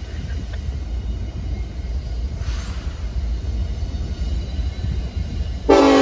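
Diesel locomotive approaching with a steady low rumble. Near the end its air horn sounds suddenly, a loud chord of several tones.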